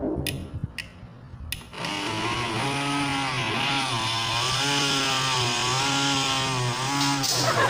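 Portable battery-powered bottle blender: three clicks in the first second and a half, then its small motor whirring with a wavering pitch as the blades churn papaya chunks. The battery is low, so it runs weakly and barely blends the fruit.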